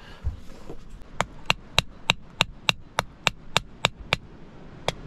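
A hammer striking a steel bar laid on a rock. About a dozen evenly spaced, ringing metallic blows come at roughly three a second, then pause briefly before another blow near the end.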